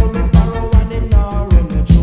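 Digital dancehall (ragga) track playing, with a heavy bass line, a steady drum beat and sustained keyboard chords.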